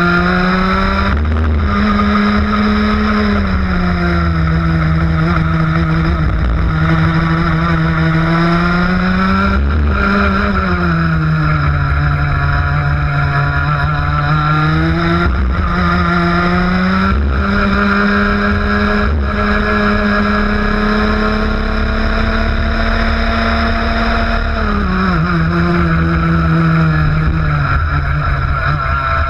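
ROK 125cc two-stroke kart engine at racing speed, heard from on board. Its pitch climbs steadily along the straights and drops off quickly each time the kart slows for a corner, several times over.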